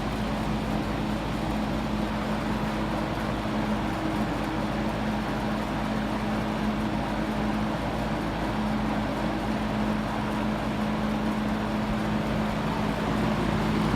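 JCPenney 9705 box fan, a 1979–80 Lakewood-built fan with a McMillan motor and metal blades, running steadily on high speed: an even rush of air over a steady motor hum.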